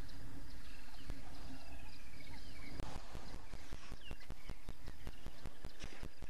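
Waterhole ambience with birds chirping. From about halfway, a rapid run of sharp clicks or knocks comes in, roughly five a second, over a low rumble.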